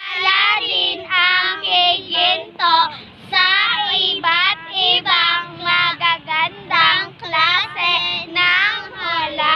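A child's high voice singing in quick, bending syllables, at lower sound quality than the music before and after it. It cuts in and out sharply.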